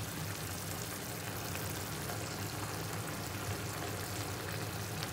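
Tomato broth with moringa pods simmering in a frying pan: a steady, even bubbling hiss, with a low steady hum underneath.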